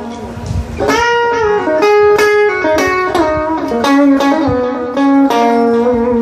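Electric guitar played through BOSS compact effect pedals, picking a run of notes and chords that ring into one another.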